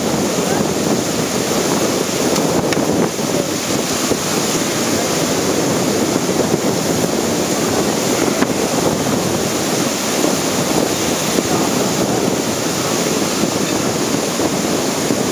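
Heavy breaking surf washing in steadily, with wind buffeting the microphone.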